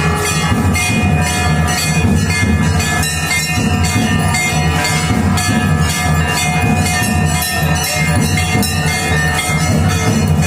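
Background music with a steady beat over a low, droning bass.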